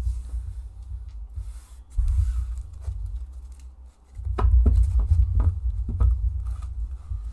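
Trading cards being dealt one by one onto a table for a pile shuffle: papery card taps and slides, with a run of sharper taps about half a second apart and dull thumps on the table in the second half.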